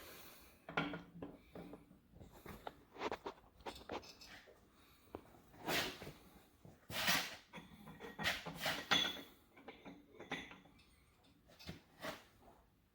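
New camshaft being pushed and twisted into a Mopar 440 block, with irregular metallic clunks and short scrapes as it catches in the cam bearings, the loudest scrapes a few seconds in. The cam is cutting into the soft bearings, shaving bearing material off as it goes in.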